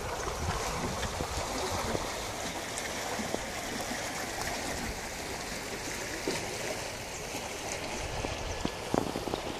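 Stream water flowing over rocks: a steady, continuous rush of running water.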